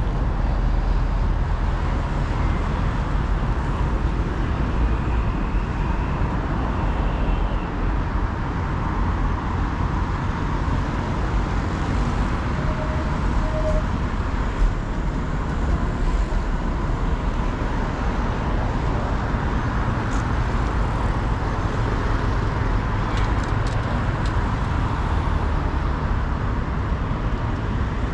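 Street traffic noise: a steady rumble of passing road vehicles.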